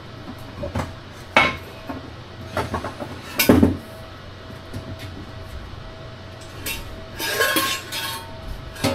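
Metal knocks and clinks as a heavy battery module and its steel mounting bracket are shifted and set back into place, with the loudest knock about three and a half seconds in and a rattling scrape near the end. A faint steady hum runs underneath.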